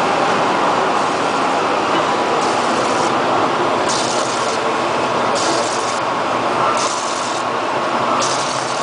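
PROMPT EDM-432CS/CNC-1 electric discharge machine running: a steady loud machine noise, with a higher hiss that comes in for about half a second roughly every second and a half, five times over.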